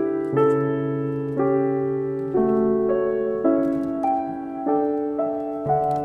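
Background piano music, a gentle melody of held chords that change about once a second.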